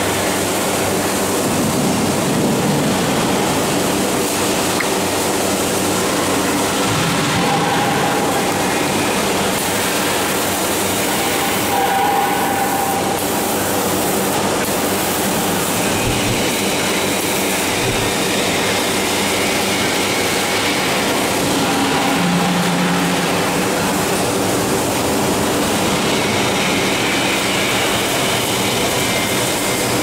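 Gas-fired grain roaster running: a loud, steady mechanical rush and rumble from the machine.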